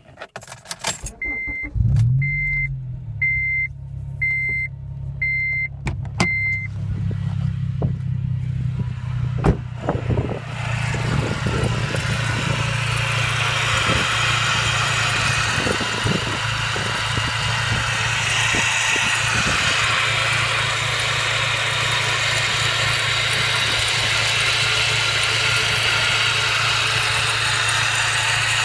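A 2009 Honda Civic Si's engine starts and runs, with six short high beeps of a warning chime in the first few seconds. From about ten seconds in, the car is driving: a low engine hum under a steady rushing noise that builds and then holds. This is the loud noise the owner hears whenever he drives and cannot place.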